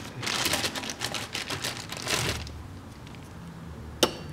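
A quick clatter of small clicks and rattles as 125-grain Nosler Ballistic Tip bullets are handled, then one sharp click about four seconds in as a bullet is set in the metal pan of an RCBS ChargeMaster 1500 digital scale.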